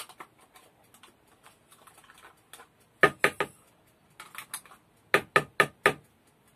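Sharp knocks of a kitchen knife on a wooden cutting board: three quick strokes about three seconds in, a few softer ones after, then five rapid knocks near the end, about four a second.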